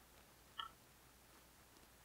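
Near silence, with one short faint click about half a second in from a small hand tool and the 3D-printed ABS housing being handled.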